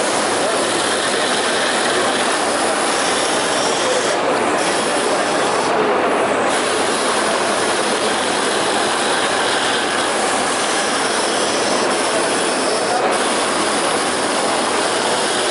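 Kingtex direct-drive 4-needle, 6-thread flat-seamer industrial sewing machine running steadily at speed, a dense even mechanical rattle of rapid stitching.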